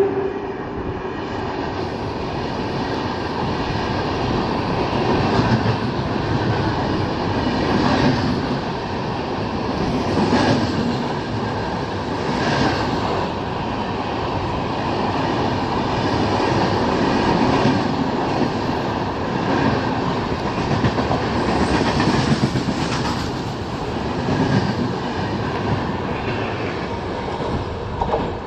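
Passenger coaches of an Indian Railways InterCity superfast express passing close by at speed. The wheels rumble and clatter on the rails, with louder bursts every couple of seconds as the coaches' bogies go by.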